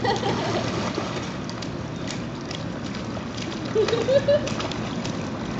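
A baby's hands slapping the water of a swimming pool: small splashes, with spray and sloshing, over a steady wash of water. A short rising voice comes in briefly at the start and again about four seconds in.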